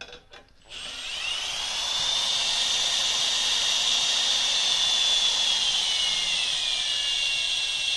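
Cordless electric screwdriver spinning a 17 mm socket to run a quick-release axle bushing into the frame: a steady motor whine that rises in pitch as it spins up, then sags a little toward the end.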